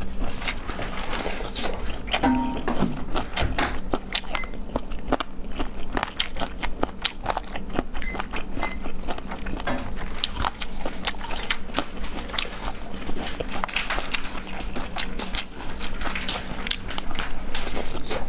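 Close-miked eating sounds: wet crunching and chewing of strips of a spicy cold dish, a dense run of small crackly crunches and mouth clicks.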